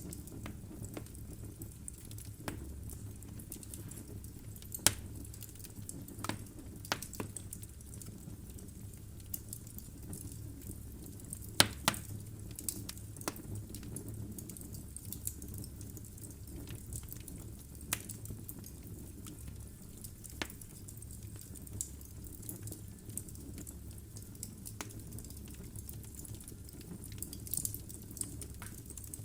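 Wood fire burning in a fireplace: a steady low rumble of flames with irregular sharp crackles and pops from the logs, the loudest pops about 5 and 12 seconds in.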